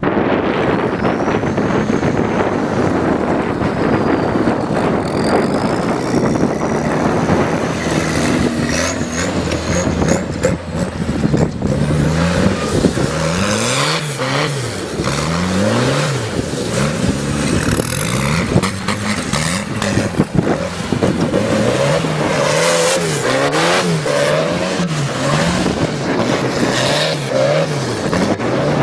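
Old farm tractor's engine running hard. From about halfway its pitch swings up and down over and over, about once a second, as the engine is revved repeatedly while the tractor turns tight circles.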